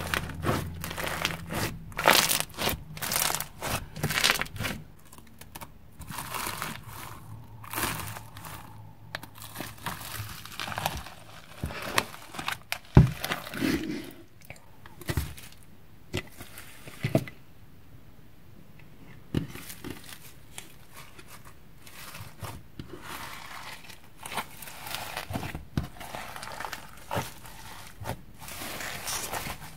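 Crunchy floam slime, thick with foam beads, being squeezed and poked by hand: a dense run of crackling and crunching, with a few sharper pops and a short lull about two-thirds through.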